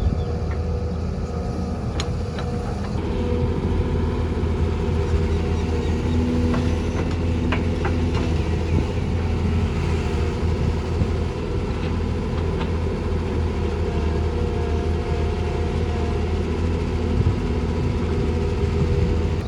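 Heavy diesel earthmoving machinery, an excavator and dirt-hauling trucks, running steadily with a low engine hum. A few short sharp knocks stand out now and then.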